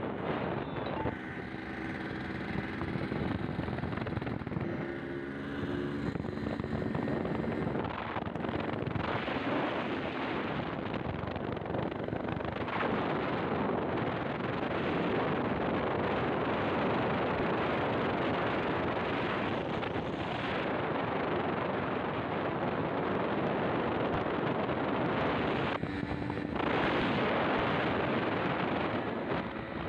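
A steady rush of wind on the microphone of a moving motorcycle, over the running note of a Yamaha RX-King's two-stroke single-cylinder engine. The engine's pitched note stands out and shifts during the first several seconds, and again briefly near the end.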